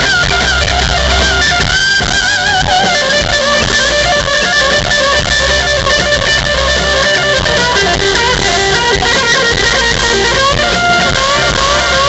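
A rock band playing live and loud, with a lead electric guitar from a sunburst single-cut guitar playing sustained, bent notes with wide vibrato over bass guitar and the rest of the band.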